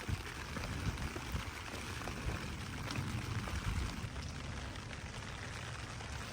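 Steady rain falling, an even hiss, with an uneven low rumble beneath it.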